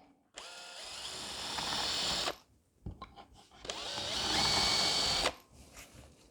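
Power drill boring two pilot holes for hinge screws into wood: two runs of about two seconds and a second and a half, each spinning up and then stopping.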